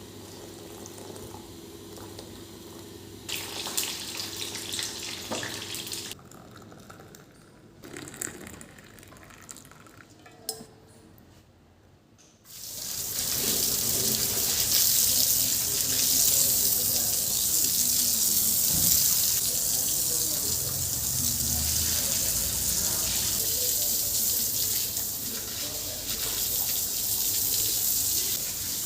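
Tap water running into a sink, starting suddenly about halfway through and running steadily from then on. Before it there is a steady hum, then a few sharp clicks and knocks.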